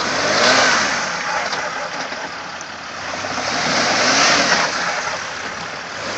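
Land Rover Discovery 4 engine revving hard in two surges, with a loud rush of noise as the vehicle labours stuck in mud.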